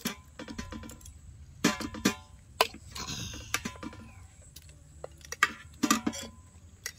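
Metal cutlery clinking and scraping on enamel plates and a bowl as roast beef is cut with a knife and fork: about a dozen sharp clinks, some with a short metallic ring.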